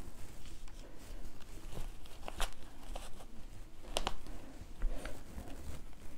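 A towel being smoothed and pressed into a machine-embroidery hoop by hand: soft rubbing and rustling of fabric, with a few sharp clicks, the loudest about two and a half and four seconds in.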